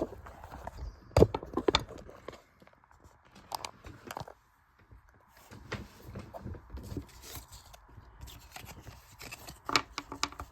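Trading cards being handled: scattered short taps, slides and rustles as cards are flipped through and set down, a little louder about a second in and near the end.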